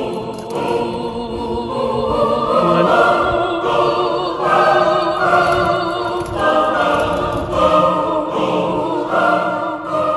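Choral music with many voices holding sustained chords, the notes wavering and changing every second or so, beginning to fade out near the end.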